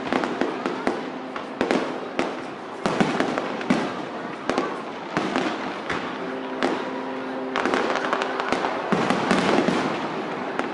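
Aerial fireworks bursting in quick succession: many sharp bangs over continuous crackling.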